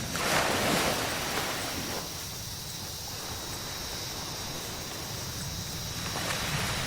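Surf on a beach: a wave breaks and washes in, fades to a soft hiss, and a second wave comes in near the end. Two steady high-pitched tones run under it throughout.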